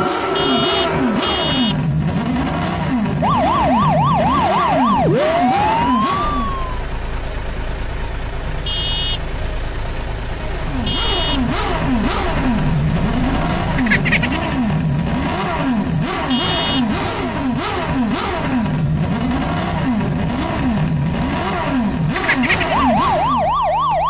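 Edited soundtrack of cartoon toy-car sound effects: a fast warbling siren about 3 seconds in and again near the end, rising whistle glides, and several short beeps over a repeating pattern of low swooping tones.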